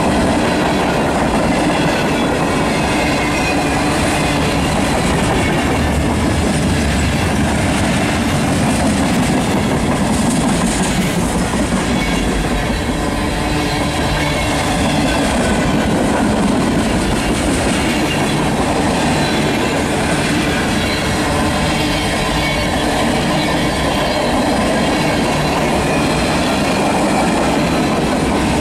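Cars of a mixed freight train rolling past at a steady pace: a continuous rumble of steel wheels on rail.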